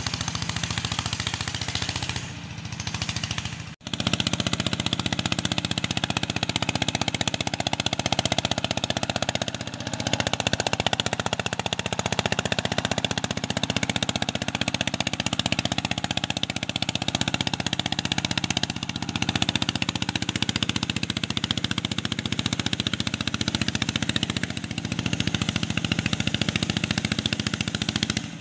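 Two-wheel walking tractor's single-cylinder diesel engine running loud under load as it pulls a disc plough, with a rapid, hard-popping exhaust beat. The sound cuts out for an instant about four seconds in.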